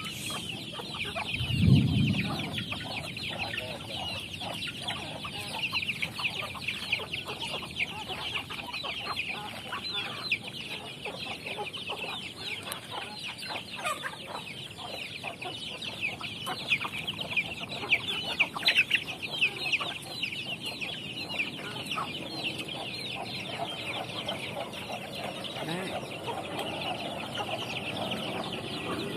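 Free-range chickens clucking and calling without a break, a dense high chatter of many birds. A short, low, louder sound comes about two seconds in.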